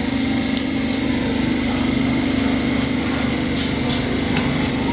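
A small motor running with a steady hum, with a few faint ticks over it.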